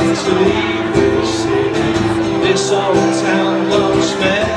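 A man singing live into a microphone while strumming an acoustic guitar, amplified through a PA, holding long sung notes over steady strumming.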